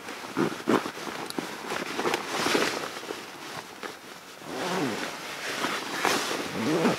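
Rustling and swishing of a woodland-camouflage bivy bag and sleeping bag as a person shifts and settles inside, in irregular bursts with a few brief squeaky rubs of the fabric.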